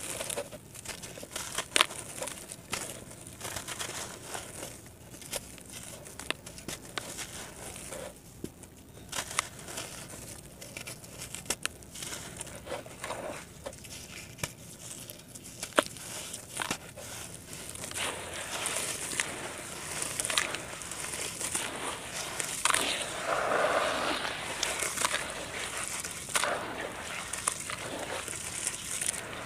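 Hands crumbling gritty red dirt into water in a plastic tub, making crisp crunching and crackling with many sharp ticks. Past the middle this turns into louder, wetter squishing and swishing as the hands knead the soaked mud into a slurry, loudest a few seconds before the end.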